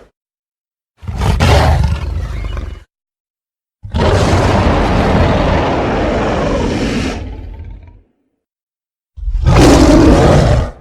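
Three separate King Kong roars, designed by mixing lion, gorilla and monkey recordings: a short roar, then a long one lasting about four seconds that fades out at the end, then another short roar near the end.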